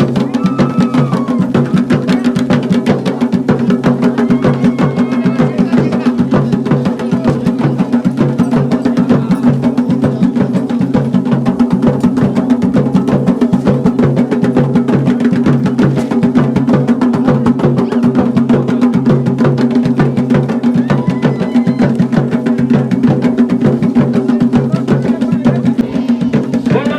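Garhwali folk drumming, the kind played with dhol and damau, in a fast, unbroken rhythm over a steady low tone.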